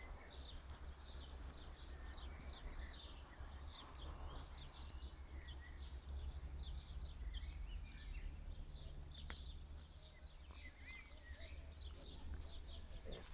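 Small birds chirping again and again in quick short calls over a constant low rumble of outdoor background noise. A faint low hum runs through the middle, and a single sharp click sounds about nine seconds in.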